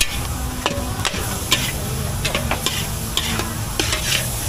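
Metal spatula and ladle scraping and tossing minced meat in a large steel wok over a steady frying sizzle. The scrapes come irregularly, about twice a second.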